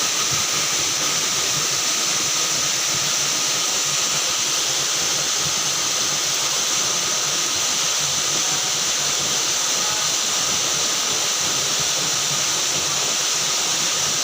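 Waterfall water rushing: a steady, even hiss with no let-up.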